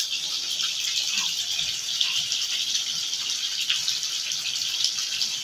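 Mutton curry sizzling in an open kadhai over a gas flame: a steady hiss with small crackles throughout.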